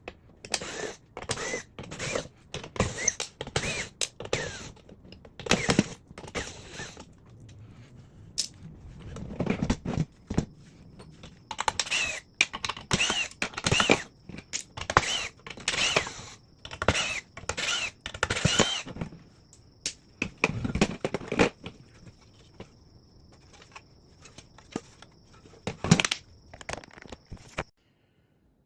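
Rapid clicking, clattering and scraping of hand tools, screws and plastic parts on a workbench as a 1/5-scale RC truck's body plastics and skid plates are unscrewed and pulled off, with some short squeaky chirps among the knocks. It stops abruptly about a second before the end.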